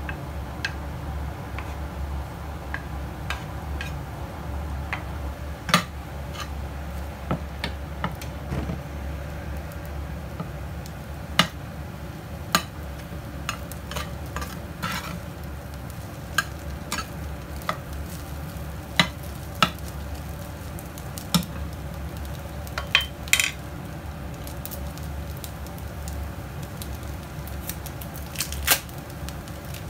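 Metal spatula stirring and scraping egg fried rice in a coated frying pan over a steady sizzle, with irregular sharp clicks as the spatula knocks against the pan.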